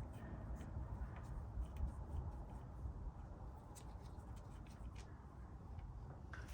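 Faint, scattered light clicks of hands and a tool working a bolt out of an ATV engine's cam chain tensioner, over a low steady hum.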